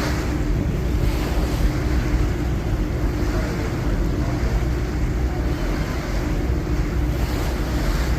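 Wind buffeting the microphone aboard a moving river tour boat, over the boat's steady engine hum and water noise.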